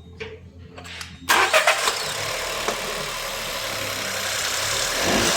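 A few faint clicks, then about a second in the SEAT Arona's 1.0 TSI three-cylinder turbo petrol engine starts with a sudden loud burst and settles into a steady idle, running a little louder near the end.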